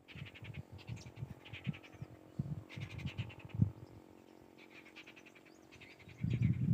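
Jungle babblers chattering: about five bursts of harsh, fast rattling calls, each under a second long. Low rumbling knocks run beneath, growing louder near the end.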